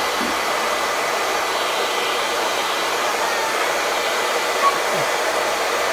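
Handheld hair dryer blowing steadily, its airflow a constant rushing hiss.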